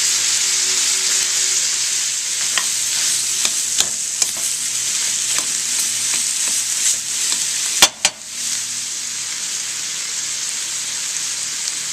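Chicken chunks, onions and green pepper frying in hot oil and soy sauce in a frying pan, with a steady sizzle and the scattered clicks and scrapes of a utensil stirring against the pan. One sharper click about eight seconds in, followed by a brief dip in the sound.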